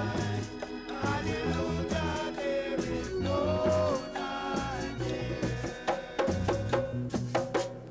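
A roots reggae record playing over a sound system: a heavy repeating bass line and steady drums, with a melody line over them.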